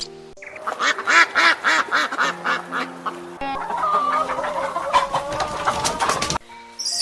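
A bird calling in a rapid series of short repeated calls, about three a second, then a quicker run of wavering calls, over soft background music; the calls cut off suddenly near the end.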